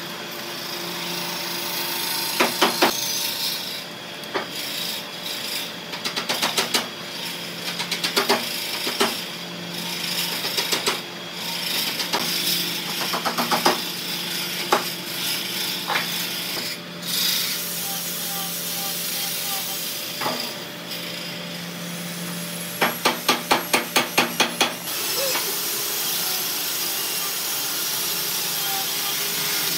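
Tools working a large piece of wood: steady rubbing and rasping over a low hum, broken by several short runs of rapid sharp taps, the longest a little before the end.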